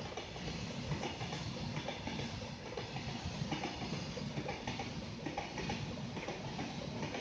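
Goods train's wagons rolling along the track, with a steady, uneven clatter of wheels knocking over the rails.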